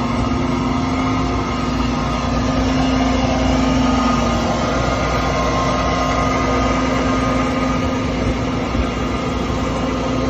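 Industrial mill grinding coarse wood fiber into wood flour, running steadily: a loud, constant machine noise with a steady hum.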